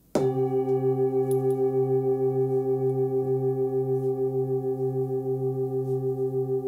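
Forged Nepalese "Full Moon" singing bowl, 24.5 cm across and tuned to C at about 133 Hz, struck once with a soft mallet just after the start. It then rings on with a low hum and several higher overtones, pulsing in a steady wobble and hardly dying away.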